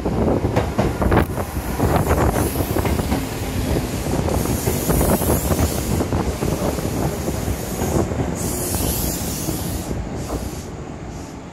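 Kintetsu commuter electric train pulling in beside the platform, its wheels clicking over rail joints as the cars pass close by, with bursts of high hissing as it brakes. The sound eases off near the end as the train comes to a stop.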